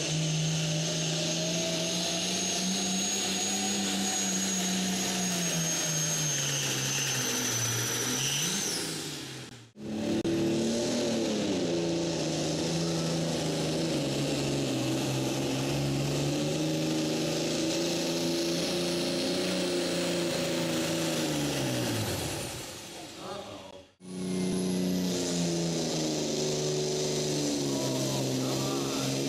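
Pulling tractors' diesel engines running flat out under load while dragging a weight-transfer sled, three runs in a row split by cuts about 10 and 24 seconds in. Engine pitch sags and recovers as the sled bears down, dropping away at the end of a pull; a high thin whistle rides over the first run.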